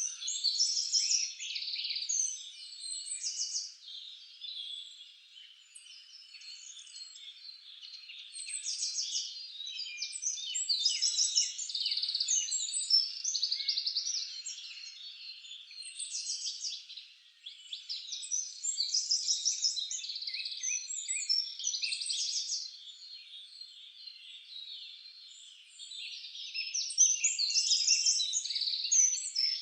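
Dense chorus of many songbirds chirping and trilling, swelling and fading in waves.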